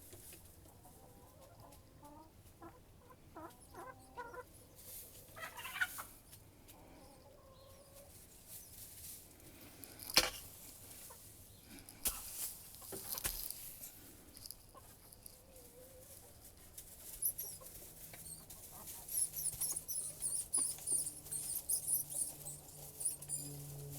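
Chickens clucking, with a few sharp knocks near the middle. In the last third come rapid, very high-pitched squeaks, typical of a mouse squealing.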